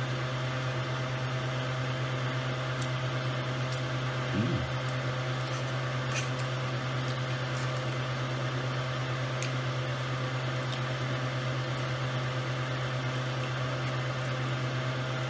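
Steady low hum of a running appliance motor or fan, with an even whirring hiss and two faint fixed tones above the drone. A brief vocal murmur rises over it about four and a half seconds in.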